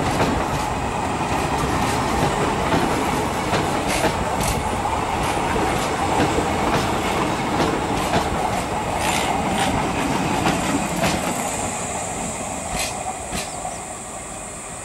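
Indian Railways passenger coaches rolling past close by: a steady wheel rumble with clacks over the rail joints. It fades in the last few seconds as the end of the train moves away.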